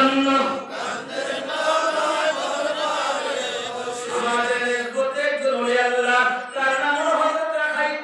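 A man chanting a Bengali devotional song (gojol) about the Prophet Muhammad into a microphone. A single voice holds long notes with ornamented turns, taking short breaths between phrases.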